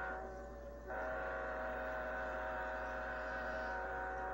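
Locomotive air horn sounding a steady chord of several tones. One blast cuts off just after the start, and after a short break a long blast holds for about three and a half seconds. A constant low hum runs underneath.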